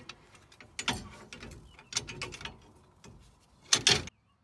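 Steel leaf springs of an Icon add-a-leaf and a truck's rear leaf pack clinking and scraping against each other as they are worked into line by hand. There are a few separate knocks, the loudest near the end, and then the sound cuts off suddenly.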